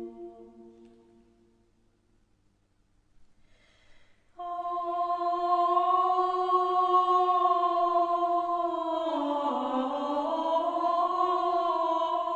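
Background music of sustained held chords. One chord fades out over about two seconds, and after a short near-silent gap a new chord enters abruptly about four seconds in and holds, its lower notes dipping and recovering near the middle.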